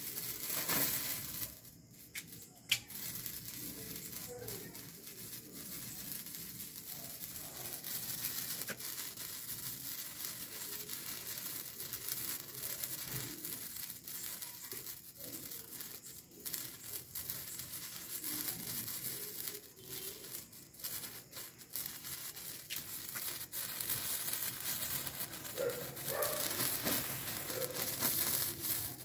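Legends brand red colour-string firework from Sivan Crackers burning along the string, fizzing and crackling steadily, with a few short dips where the burn falters.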